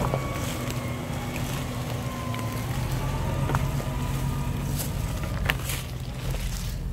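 Toyota 105-series Land Cruiser engine running steadily at low crawling speed, with scattered sharp cracks and crunches from the tyres rolling over stones and sticks.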